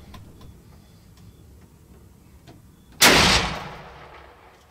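A single hunting-rifle shot about three seconds in, loud and sudden, its report rolling away over about a second and a half.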